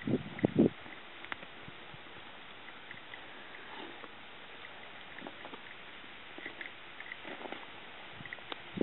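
Miniature horses rolling in the dirt: three short, loud low sounds in the first second, then quiet with a few faint low rustles and scattered faint high chirps.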